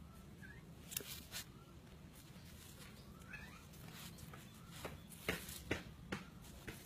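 Small dog nosing and sniffing through bark mulch and dry leaves, with soft rustles and crackles, and two faint high whimpers.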